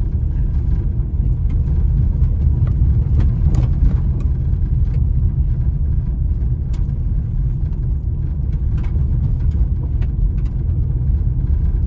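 Car driving on a dirt road, heard from inside the cabin: a steady low rumble of tyres and engine, with scattered light clicks.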